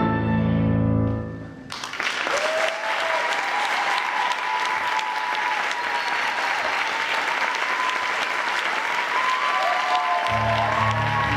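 The last held chord of a stage musical's finale dies away, and about two seconds in audience applause breaks out, with a few cheering voices over the clapping. Near the end, instrumental music starts again under the applause.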